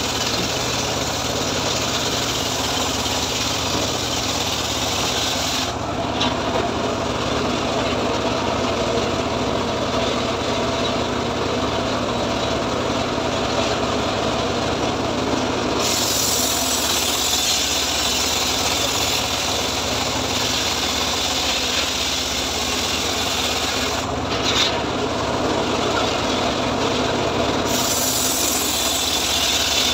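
Homemade engine-driven circular saw bench (gergaji srekel) ripping teak slabs: a steady engine drone under the rasping whine of the blade cutting through the wood. The high rasp of the cut fades out for about ten seconds from about six seconds in, and again briefly near the end, while the engine keeps running.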